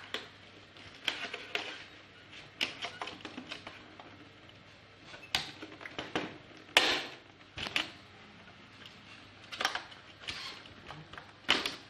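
Irregular sharp clicks, taps and short scrapes of a plastic projector casing and its parts being handled and worked apart, with the loudest click a little over halfway through.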